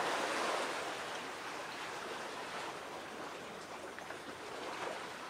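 Sea waves washing against the shore, a steady rushing that is a little louder at first and eases off.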